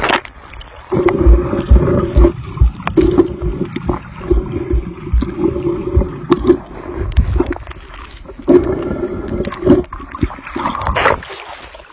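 Underwater sound through a submerged iPhone 7's microphone: a splash as it goes under, then muffled gurgling water and low thumps, with a droning tone that comes and goes in stretches of one to two seconds. It fades out near the end.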